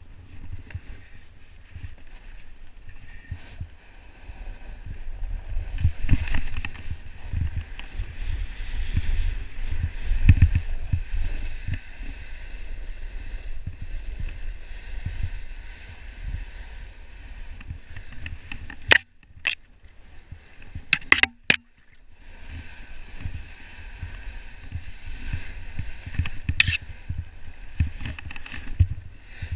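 Snowboard sliding and scraping over snow in a steady hiss, with gusty rumble from air rushing over the camera microphone. The sound drops away briefly about two-thirds of the way in, with a few sharp clicks.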